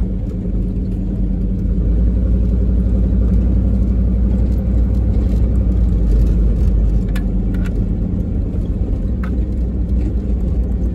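Pickup truck driving on a rutted dirt road, heard from inside the cab: the engine and tyres make a steady low rumble that grows a little louder about two seconds in, with a few light clicks in the second half.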